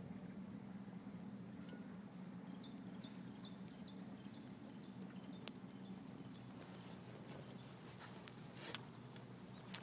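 Small boat's motor running with a steady low hum. A quick run of short high ticks comes a couple of seconds in, and a few sharp clicks come near the end.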